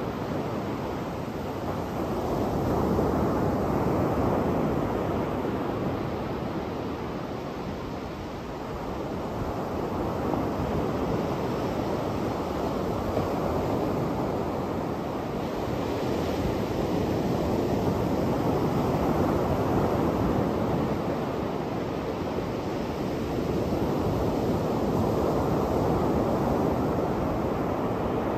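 Surf breaking on a sandy beach: a steady wash of wave noise that swells and fades every seven or eight seconds as each set of waves comes in.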